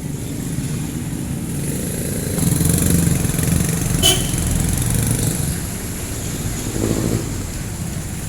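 Street traffic with jeepney engines running, the rumble growing louder about two and a half seconds in as a vehicle nears. There is a single sharp click about four seconds in.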